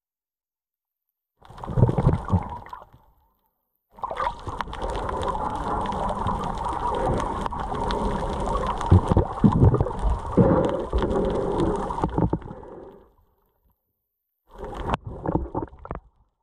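Muffled water sloshing and gurgling with low thumps, heard underwater. It comes in three stretches, the longest in the middle, and cuts to dead silence between them.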